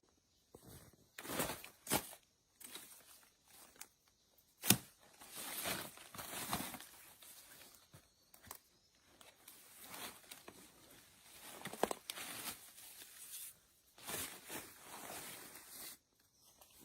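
Irregular rustling and crunching of someone moving about and handling things, with one sharp snap about five seconds in.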